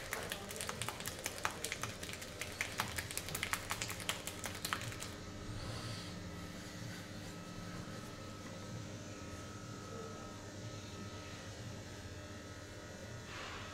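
Rapid sharp taps, several a second, for about five seconds, then only a faint steady hum with a thin high tone.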